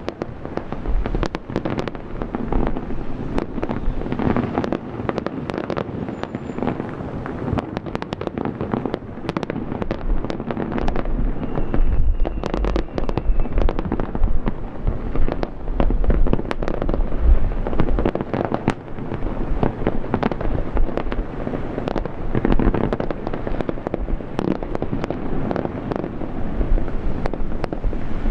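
Aerial fireworks display: shells bursting in a dense, loud, continuous barrage of sharp bangs and crackles over a steady low rumble.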